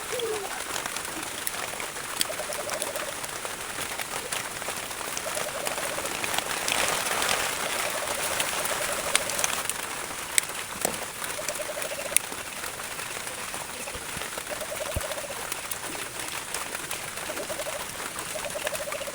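A dove cooing again and again, short wavering calls every few seconds, over a steady hiss. Scattered light clicks and a rustling swell of noise about seven seconds in come from work nearby.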